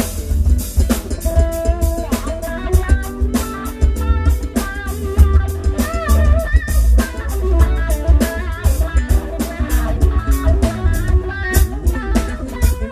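A live band playing an instrumental: an electric guitar lead with bent, wavering notes over a drum kit and heavy bass.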